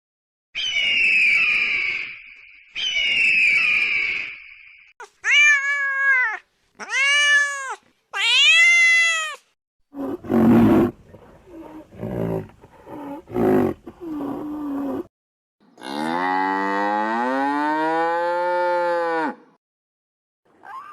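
A run of different animal calls, one after another: two hoarse calls, then three short arching cries, then a series of low rough grunts, and finally one long call that rises in pitch.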